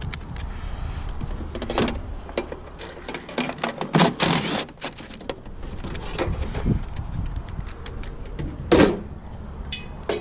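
Clicks and knocks of a cordless drill's bit being swapped and tools handled, with a short loud burst of noise about four seconds in and a loud knock near nine seconds, over a steady low rumble.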